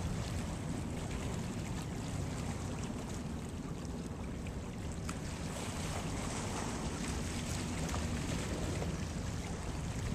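Steady low rush of wind on the microphone, with water washing on the hull and waves.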